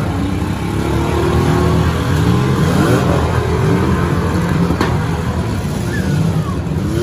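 Several demolition-derby car engines revving at once, their pitch rising and falling, with a single sharp crack about five seconds in.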